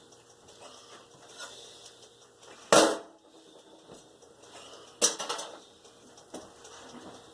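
Kitchen clatter of cookware and utensils: two sharp clanks about two seconds apart, with light clicks and knocks between them.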